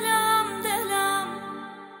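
Closing bars of a Persian pop song: a wavering lead melody over held chords, fading steadily toward the end.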